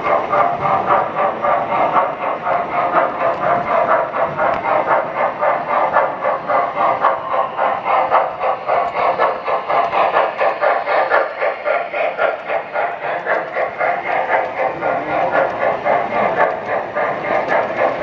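Model train running along a layout's track, a steady stream of fast wheel clicks and rolling noise.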